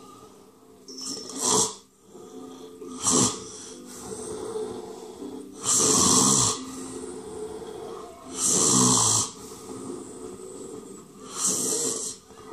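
A person snoring: five loud, harsh snores about two to three seconds apart, the middle ones the longest, with softer breathing between them.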